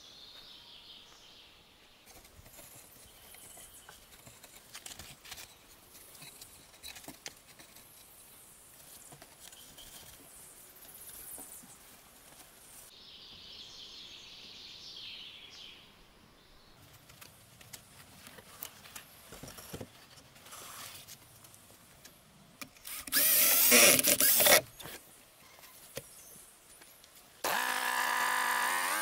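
Quiet outdoor background with faint birdsong and scattered light knocks, broken about three quarters of the way through by a loud, noisy burst lasting about a second and a half. Near the end a Kroff chainsaw starts running steadily, its pitch rising slightly.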